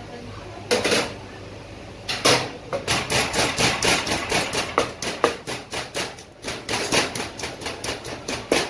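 Wooden pestle pounding garlic cloves and red chilies in a large wooden mortar, crushing them for a Thai green papaya salad. It starts with a couple of separate knocks, then goes on as a quick run of dull strikes, about three or four a second.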